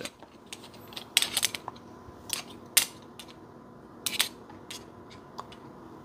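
Pocket knives and small metal gear clicking and clinking against each other as they are picked up and gathered by hand: a scatter of short, sharp clicks, the loudest about one and three seconds in.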